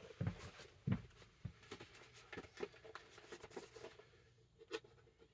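Faint scattered clicks and rustles of action-figure packaging, plastic and cardboard, being handled, with one last click near the end.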